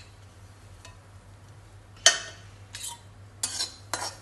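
A metal spatula clanks against a stainless-steel kadai about two seconds in, then scrapes and stirs it in several quick strokes, turning semolina, dry fruits and grated coconut frying in ghee.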